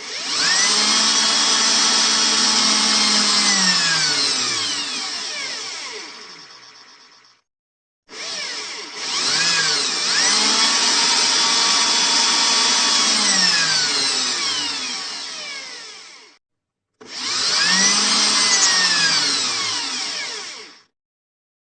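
Electric power drill run three times: each run spins up, holds a steady high whine, then winds down in falling pitch when the trigger is released, with a brief silence between runs.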